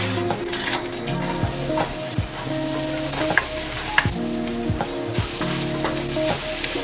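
Chopped onion and garlic sizzling in a hot frying pan, stirred with a wooden spatula that scrapes and taps against the pan every second or so.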